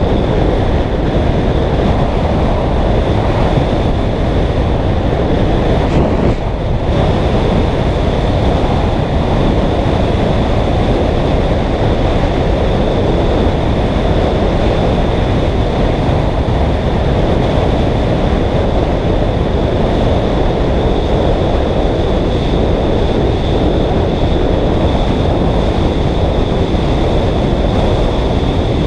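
Steady, loud rush of wind over the microphone of a bicycle speeding downhill, with a thin steady whine high above it and a brief dip about six seconds in.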